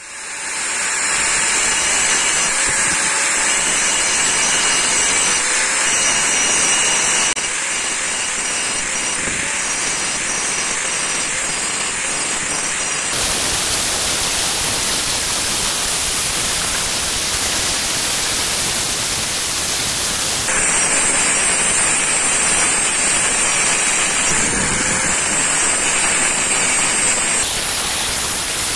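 Angle grinder grinding the edge bevel of a steel machete blade made from an old circular saw, giving a steady loud grinding hiss. Its tone changes abruptly several times.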